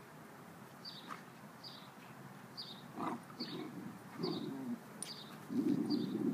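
Dogs play-growling as they wrestle, the growls starting about halfway through and loudest near the end. A bird chirps about once a second in the background.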